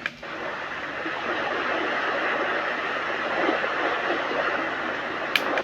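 Small plug-in white noise machine playing one of its sound settings: a steady, even rushing noise. A sharp button click near the end switches the setting.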